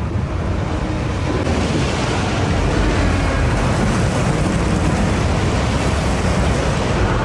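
Film sound effects of a heavy, churning sea with a deep rumble underneath that swells and grows stronger about two and a half seconds in.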